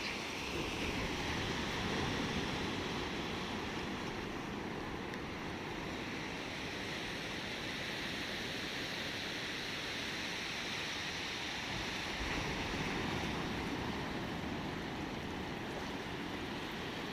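Ocean waves washing in a steady rush of water, swelling a little about two seconds in and again about twelve seconds in.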